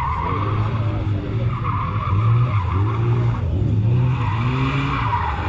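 A car engine revving up and down again and again as it is driven hard through a slalom course. Several times the tyres scrub and squeal through the turns.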